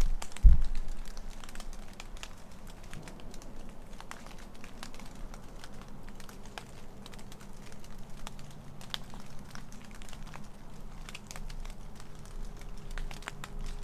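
A single low bump about half a second in, then faint rustling and scattered light clicks over a quiet, low steady hum: handling noise from the hand-held camera and the hunter's clothing and gear.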